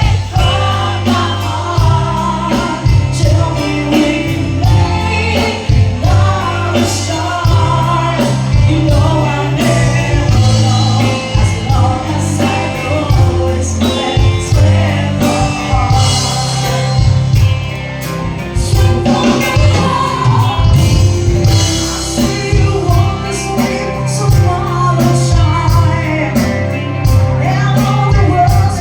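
A song sung over a band: held bass notes and a regular drum beat under vocal lines.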